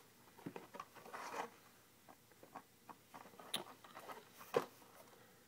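Faint handling noises from a trading-card box being turned over in the hands: light rustles and small taps, with a couple of sharper clicks about three and a half and four and a half seconds in.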